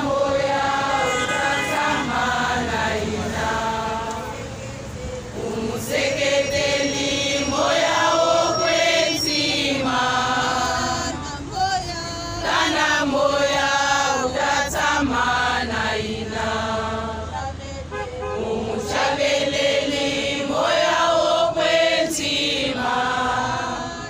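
A large crowd singing together in unison, a chant-like song sung in repeated phrases of a few seconds each with short breaks between them.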